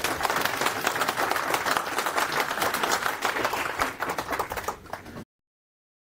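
Audience applauding, a dense patter of many hands clapping that thins out near the end and cuts off abruptly about five seconds in.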